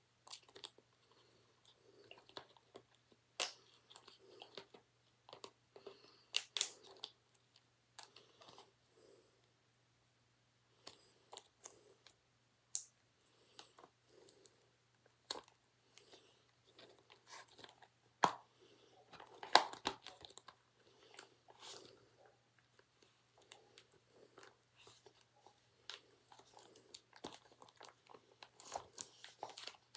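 Plastic wrapping on a DVD case being handled, peeled and torn off: irregular crinkling and crackling with scattered sharp clicks, loudest in a cluster about two-thirds of the way through, over a faint steady hum.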